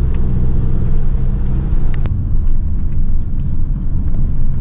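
Motorhome engine running and road rumble heard inside the cab while driving, with a steady engine tone that blurs out about halfway through. A sharp click about two seconds in.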